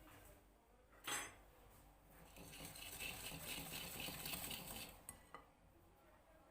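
A sharp ringing clink of a utensil against a bowl, then about three seconds of quick, rhythmic stirring in the bowl with a utensil, about three to four strokes a second, ending in a couple of light taps.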